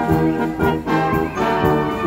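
Brass band music: trombones and trumpets playing held notes over a steady beat of about three strokes a second.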